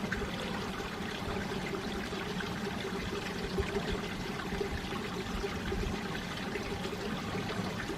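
Mountain valley stream: water flowing and splashing over rocks in a steady, unbroken rush.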